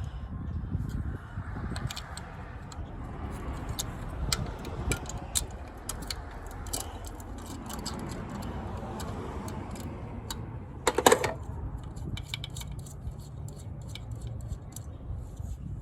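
Metal clinks and clicks from hand tools and bolts being handled during the alternator job, with one louder, ringing metal clank about eleven seconds in, over a low steady rumble.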